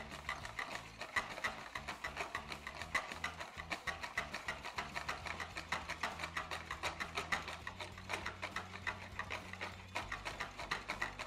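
Hand whisking of mayonnaise: a metal balloon whisk beats egg yolks, mustard and olive oil in a bowl, its wires clicking against the bowl in a quick, steady rhythm. The oil is going in a little at a time as the emulsion begins to bind.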